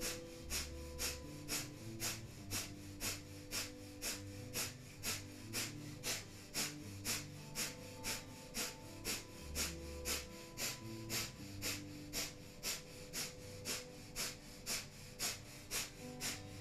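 Breath of fire: rapid, rhythmic forceful exhales through the nose, about two a second, pumped by the navel. Soft background music with held notes plays underneath.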